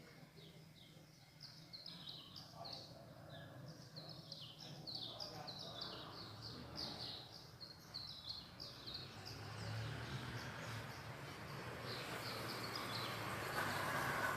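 Songbirds chirping, a dense run of short, quick high chirps repeating over and over. In the second half a rushing noise swells steadily and grows louder than the birds near the end.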